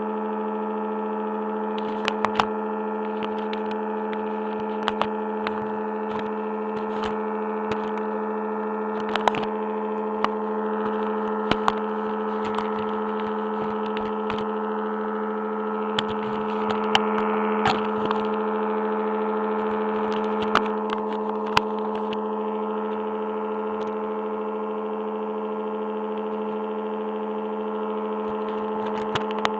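Sustained ambient drone: several steady tones held together, with scattered sharp clicks and crackles throughout and a slight swell in loudness around the middle.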